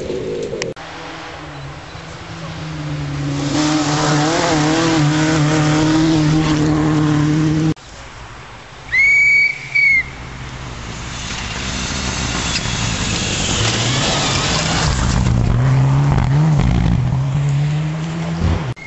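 Rally cars at speed on a gravel forest stage: an engine grows louder as a car approaches under throttle, then, after a break, another car comes up with its engine note dipping and climbing as it takes a bend, with gravel noise from the tyres. About nine seconds in there are two short, loud, high-pitched blasts.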